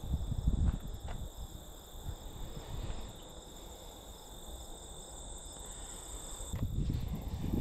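Crickets trilling steadily, a constant high-pitched ring, with low rumbles on the microphone in the first second and again near the end.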